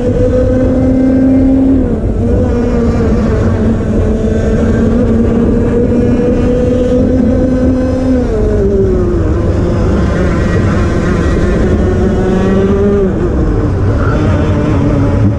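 Onboard sound of a 125cc two-stroke TAG racing kart engine running near full revs. Its high, steady note drops about eight seconds in as the driver lifts for a corner, climbs again as he gets back on the throttle, and dips briefly once more near the end.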